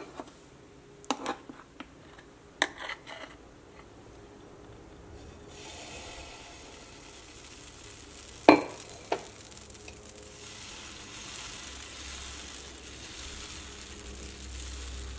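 Metal spoon clinking a few times, then a faint hiss from the hot pan that grows after a sharp clink of the spoon about eight seconds in, as wheat-flour and banana batter is poured onto the nonstick pan and starts sizzling gently while it is spread.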